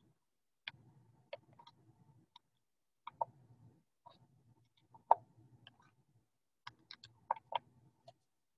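Scattered sharp clicks and taps at an irregular pace, in small clusters with a few close together near the end, the loudest about five seconds in, over a faint low hum.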